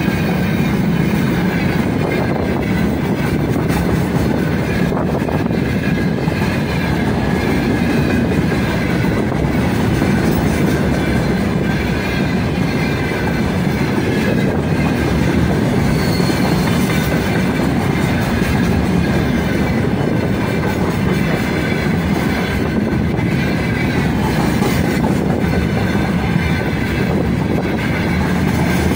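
Freight train of open gondola wagons rolling past close by: a steady loud rumble of steel wheels on rail, with clatter from the wheels and a thin high steady squeal riding over it.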